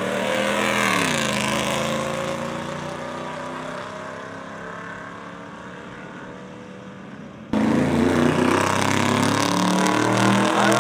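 A lifted Toyota 4Runner's engine passing close under throttle, its pitch dropping as it goes by, then fading as it runs off down the drag strip. About seven seconds in, an abrupt change to two pickup trucks racing side by side, engines much louder and climbing in pitch.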